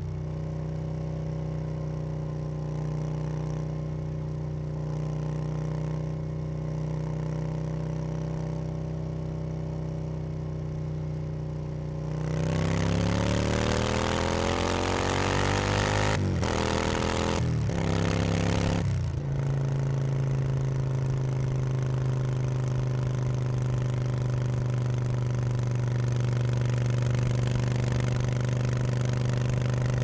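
Yamaha BT1100 Bulldog's air-cooled V-twin engine heard from on board the moving motorcycle, running at a steady cruise. About twelve seconds in it accelerates with a rising engine note and two short breaks for gear changes. It then settles to a steady cruise with more wind noise.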